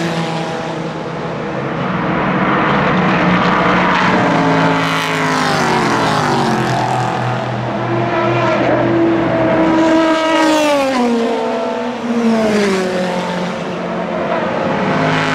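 Several endurance race cars pass in quick succession at full throttle, their engines loud and overlapping. Each engine note falls in pitch as a car goes by or shifts up.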